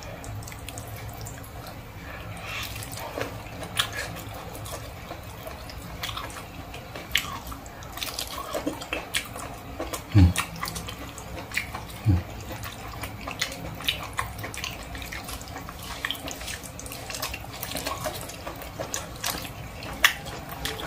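Wet chewing and lip-smacking of cooked goat's ear, with many small clicks and crunches of the young ear cartilage as it is chewed and the meat is pulled apart by hand. Two louder dull thumps come about ten and twelve seconds in.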